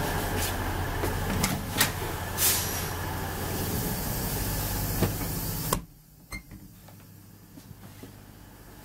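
Steady loud noise inside a Class 319 electric train carriage, with a low hum and several knocks and clicks, that drops sharply about six seconds in to a much quieter low hum.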